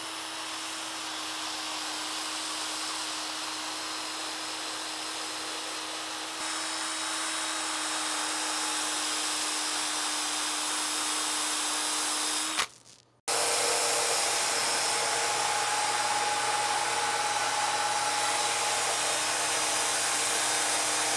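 Cordless drill driving a sanding disc against a dyed wooden vessel that spins on a lathe: a steady motor whine over the hiss of sandpaper. This is power-sanding the black aniline dye back off the wood. The sound cuts out for a moment about 13 seconds in, then carries on.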